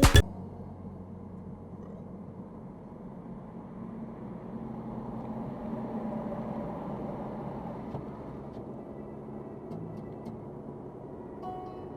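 Steady engine and road noise of a car driving, swelling for a few seconds in the middle and then easing, with a few faint clicks later on.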